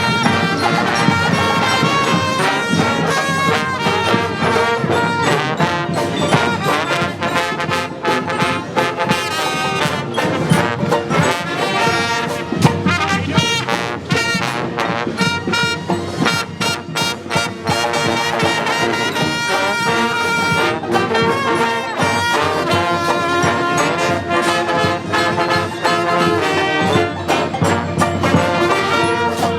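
Street brass band playing a tune, the horns carrying the melody over sharp percussion hits.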